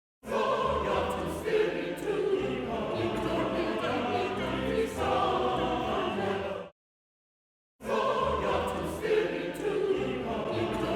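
Choir singing a passage of about six and a half seconds, which cuts off to silence and then starts again as the same passage: a before-and-after comparison for cough removal.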